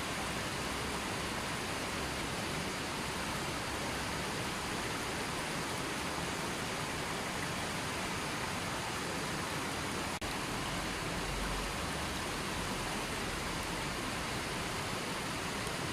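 River water flowing in a steady, even rush, with one brief click and drop in level about ten seconds in.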